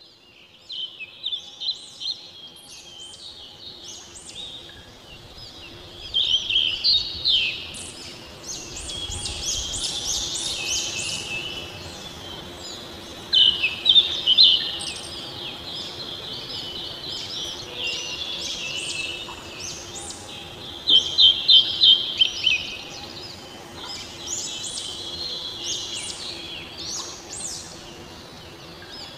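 Many small birds chirping and singing together in quick, high-pitched notes, with louder flurries of rapid chirps about six, thirteen and twenty-one seconds in.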